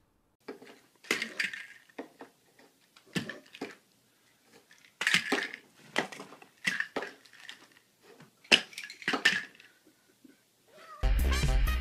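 Small bottles clinking and knocking against each other and the wooden dresser top in irregular short clatters. Music starts abruptly near the end.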